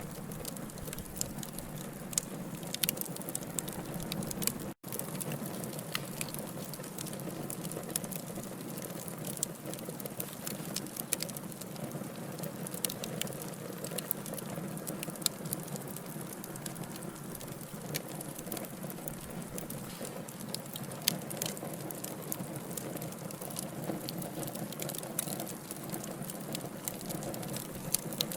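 Logs burning in a fireplace: a steady low rush of flame with frequent sharp crackles and pops at irregular moments. The sound cuts out for an instant about five seconds in.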